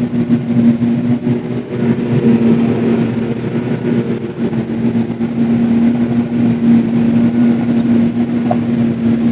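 Claas Jaguar 950 self-propelled forage harvester running steadily under load while chopping standing maize for silage: a constant hum with a steady mechanical rush, heard from inside the cab.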